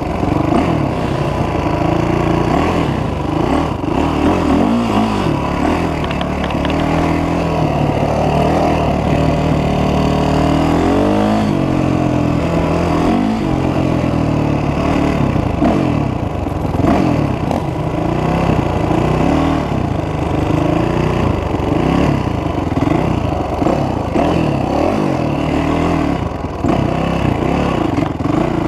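A 450 quad's engine heard from on board while riding, revving up and down over and over as the rider accelerates and shifts, with one long rising rev about ten seconds in.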